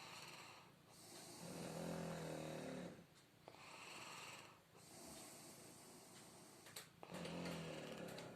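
Shar Pei dog snoring in its sleep: two pitched snores about five and a half seconds apart, with a softer, hissing breath between them.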